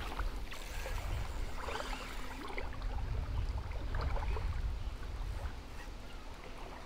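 Small river current flowing and lapping, with scattered faint ticks and a steady low rumble underneath.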